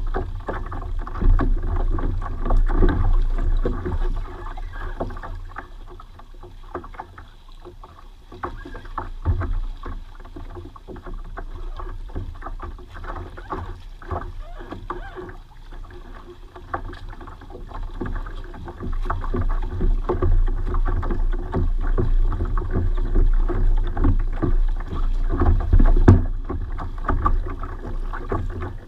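Choppy water lapping and slapping against a plastic fishing kayak's hull in irregular splashes, over a low rumble.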